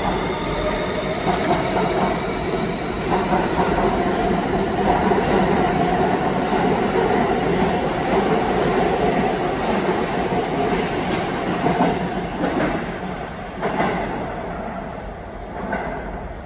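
R160 subway train pulling out, its AC traction motors whining in a tone that rises as it accelerates. The cars then rumble past, with sharp clicks from the wheels over rail joints, and the sound fades near the end as the train leaves.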